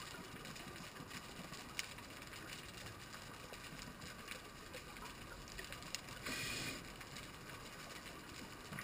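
Underwater reef ambience heard through a dive camera: a steady faint crackle of small clicks and hiss, with a few sharper clicks and a short rushing burst about six seconds in.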